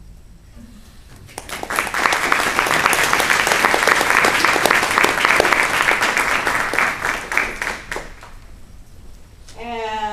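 Audience applauding for several seconds at the end of a poem; the clapping starts about a second and a half in, swells, and fades out by about eight seconds. Near the end a person's voice hums a single steady note.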